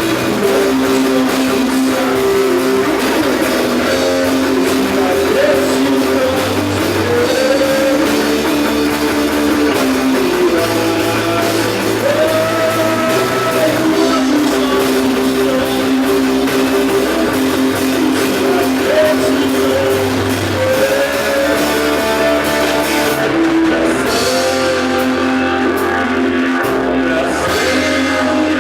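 Live rock band playing: guitar carrying sustained, sliding melodic lines over a steady bass line and drums.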